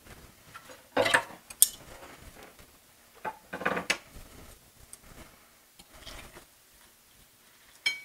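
A metal utensil clattering and scraping against a frying pan a few separate times as frying pirozhki are turned over.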